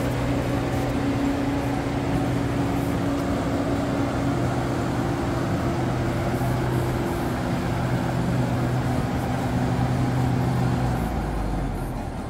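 Claas Crop Tiger 40 tracked combine harvester's diesel engine running steadily with a constant hum as the machine drives slowly. Near the end the hum fades and the level drops.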